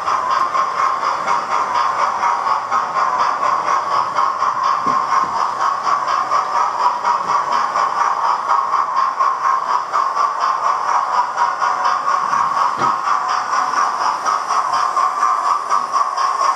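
Model railway locomotive, the Cock of the North model, running along the layout track at speed: a steady mechanical running noise with a fast, fluttering rattle.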